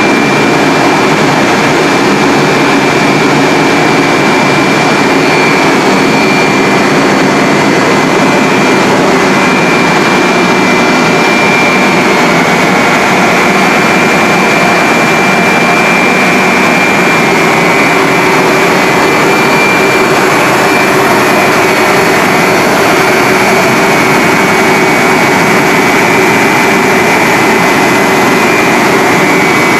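HMG CANDELA75 HDPE pipe extrusion line running: the extruder's electric drive motor and barrel cooling fans make a loud, steady machine noise with a steady high-pitched whine over it.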